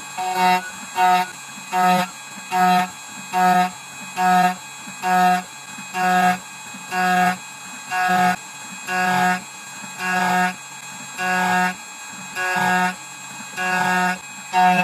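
2M2 Tank 2 Pro CNC key cutting machine working on a key blank: a pitched machine whine sounds in short pulses a little under once a second, over a steady fainter hum.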